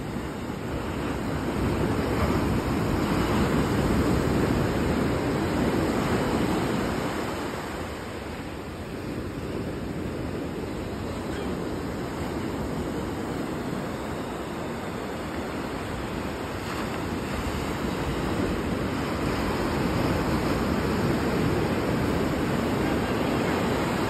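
Ocean surf breaking and washing up a sandy beach: a steady rushing that swells to a peak a few seconds in, eases off through the middle, then builds again near the end.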